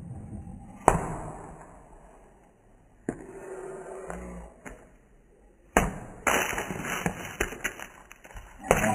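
A basketball bouncing on a concrete driveway: separate thuds about one, three and six seconds in, then a busier run of knocks and scuffs.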